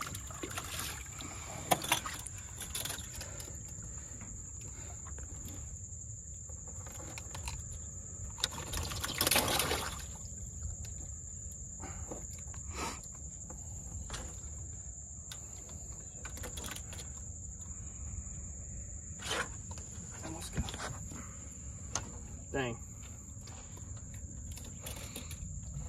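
Insects in the marsh grass giving a steady high-pitched drone, with scattered knocks and a louder scuffle about nine seconds in as a redfish is handled on the boat deck.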